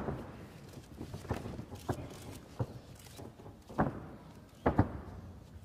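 Bodies, feet and hands of two grapplers thudding and slapping on the ring canvas: a string of sharp, irregular knocks, about seven of them.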